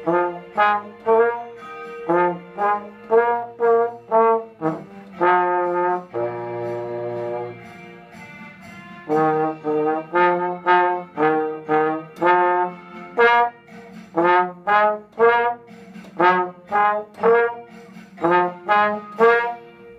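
Slide trombone playing a melody in short, detached notes with a steady rhythm, broken by one longer held note about six seconds in and a brief pause around eight seconds before the short notes resume.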